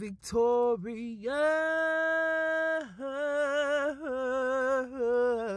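A single voice singing slowly and unaccompanied, in long drawn-out notes. One note is held steady for about a second and a half near the middle, and the shorter notes around it waver in pitch.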